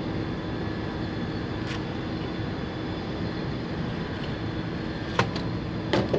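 A steady engine hum, with three sharp clicks or knocks, one about two seconds in and two near the end.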